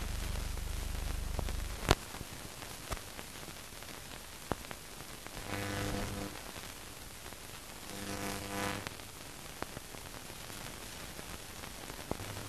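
Hiss and crackle of an old 1945 film soundtrack with no speech. A low steady hum stops at a sharp click about two seconds in. Scattered clicks follow, with two short steady buzzing tones near the middle.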